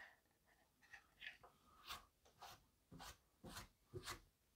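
Near silence with a few faint, short taps and rubs as the wooden baseboard of a kit regenerative tube radio is handled and tilted over, a little louder near the end.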